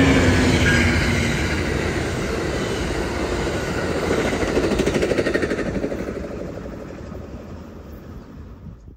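Amtrak passenger train of bilevel coaches rolling past at speed, a steady rumble with rapid wheel clicks on the rails. The sound peaks as the last car passes, then fades away as the train recedes.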